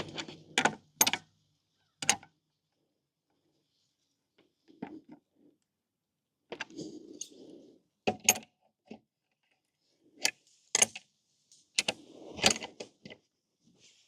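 Metal parts and hand tools clicking and clinking as the scooter's rear wheel is put back together, with about a dozen separate sharp clicks and soft handling noise between them.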